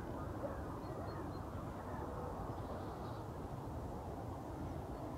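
Steady low outdoor rumble, with a few faint, short, high bird chirps about a second in and again about three seconds in.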